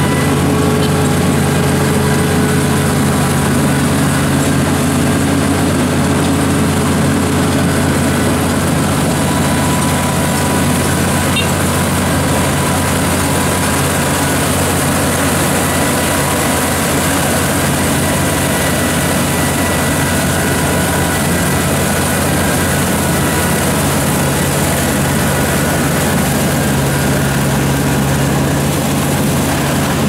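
Rice combine harvester running steadily under load, its engine and threshing machinery working as it crawls through a muddy paddy cutting lodged, typhoon-flattened rice.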